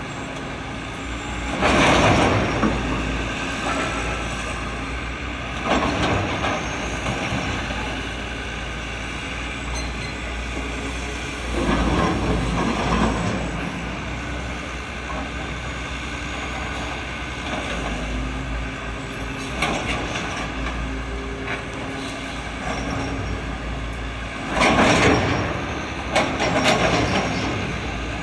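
Outdoor traffic and machinery noise: a steady low rumble of heavy vehicles, with several louder noisy surges lasting about a second each, around two, six, twelve, twenty-five and twenty-seven seconds in.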